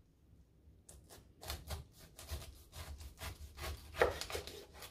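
Kitchen knife cutting into a whole pineapple: a run of short, irregular cutting strokes starting about a second in.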